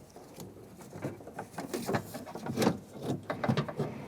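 Scattered light clicks, taps and rattles of a car door latch assembly and its linkage rods being handled and worked into place inside the door shell.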